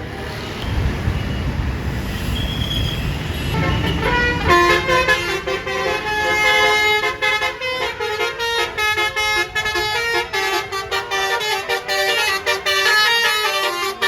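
A bus rumbles close by. About four and a half seconds in, its telolet horn starts playing a quick melody of shifting tones that keeps going.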